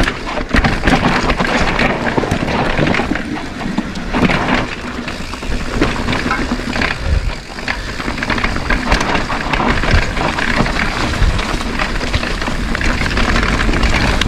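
Mountain bike rattling and clattering as it rolls fast down a rough dirt singletrack, tyres crunching over dirt and rocks, with wind buffeting the microphone as a steady rumble.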